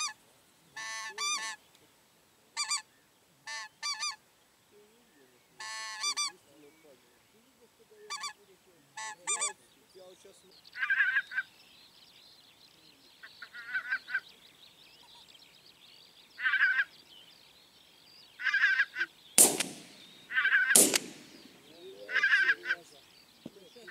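Geese honking: short calls repeated at uneven intervals. Near the end come two loud, sharp bangs about a second and a half apart.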